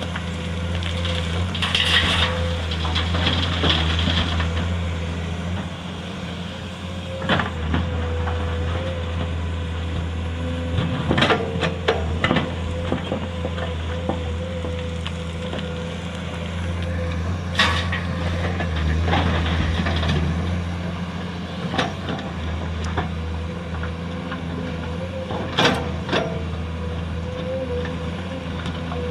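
Komatsu PC210 excavator's diesel engine running steadily with a thin steady whine, broken by scattered clanks and knocks and a brief hiss about two seconds in.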